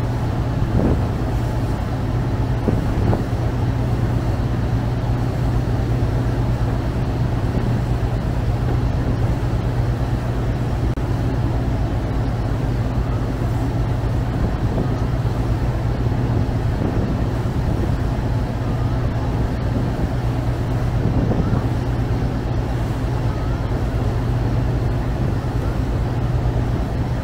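Chao Phraya Express river boat's diesel engine running steadily at cruising speed, a constant low drone, with the wash of water churning along the hull and wake.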